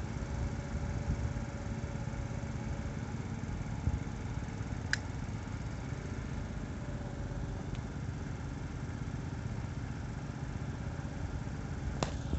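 Motor scooter engines idling in a steady low rumble, with a faint steady hum over it and two sharp clicks, one about five seconds in and one near the end.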